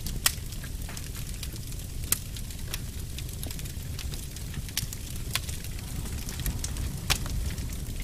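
Wood fire burning in a fireplace: a steady low rumble with sharp crackles and pops scattered every second or so, a few of them louder, one just after the start and another about seven seconds in.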